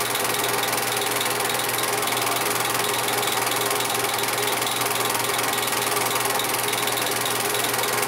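An 8mm film projector running: a steady mechanical whir and clatter with a faint, even ticking.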